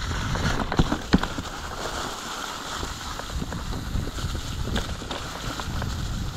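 Orbea Occam full-suspension mountain bike rolling along a dirt trail: a steady rumble from the tyres with scattered knocks and rattles from the bike, two sharper knocks about a second in.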